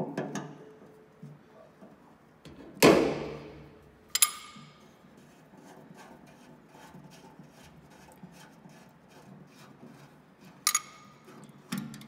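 Metal hand-tool work on the fuel line nut at the sediment bowl of a John Deere 720 diesel, as the nut is loosened. A wrench clanks against the fitting, loudest about three seconds in, with ringing metal clinks near four seconds and again near eleven seconds, and a run of light ticks in between.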